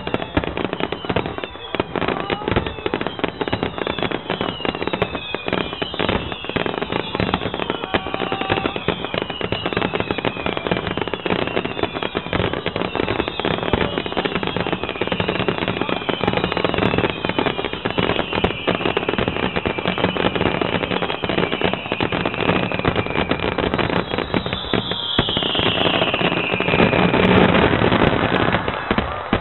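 A dense barrage of fireworks: rapid crackling bursts and bangs overlaid with many whistles that fall in pitch. It swells louder about 25 seconds in, then cuts off at the end.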